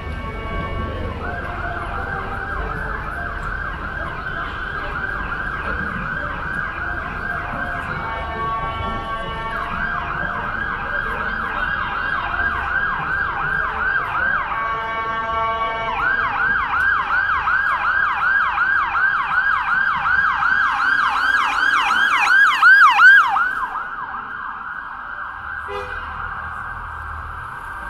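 Emergency vehicle siren sounding a fast rising-and-falling yelp, switching twice to a steady alternating tone. It grows louder as it comes closer, then cuts off abruptly a few seconds before the end.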